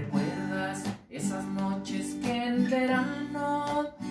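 Acoustic guitar strummed, with a man singing along, his line bending in pitch. The playing breaks off briefly about a second in.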